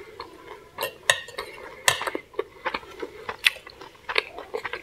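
Metal fork clinking and scraping against a plate as food is picked up: a series of short, sharp clicks, the loudest about two seconds in.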